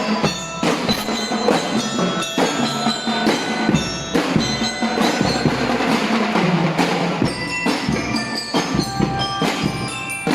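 A drum and lyre corps playing: bell lyres ring out a melody over a steady run of drum strikes.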